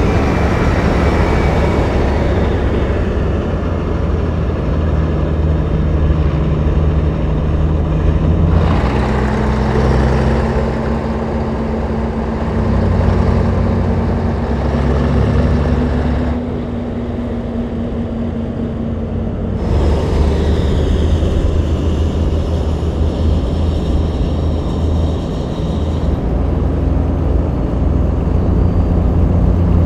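Vintage trucks running at cruising speed on a highway: a steady low engine and exhaust drone with tyre and wind noise. The sound changes abruptly several times as one truck's shot gives way to another's.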